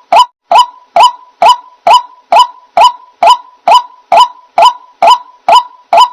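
White-breasted waterhen calling: short, loud honking notes repeated evenly, a little over two a second, about fourteen in all.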